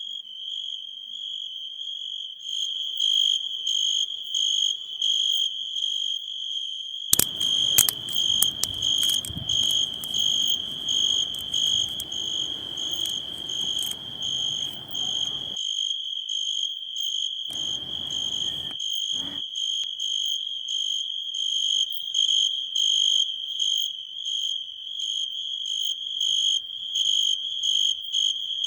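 Crickets chirping: a steady high-pitched trill pulsing in a regular rhythm throughout. From about 7 to 15 seconds in there is rustling with sharp clicks, and two more brief rustles follow.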